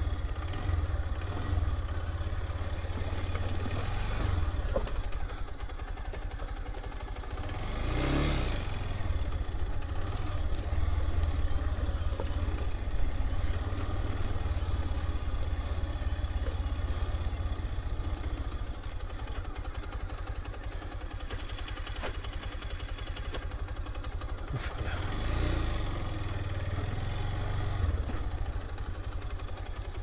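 Motorcycle engine running steadily as the bike is ridden along a rough mountain track, with a louder swell about eight seconds in and again around twenty-five seconds.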